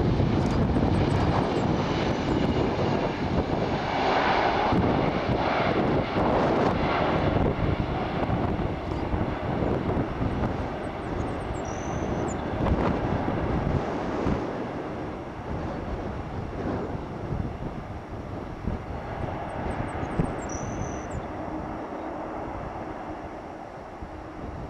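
Jet engine noise of a Boeing 767 coming in to land, a loud, wide rumble that fades steadily as the airliner moves away. A few short high chirps sound faintly over it.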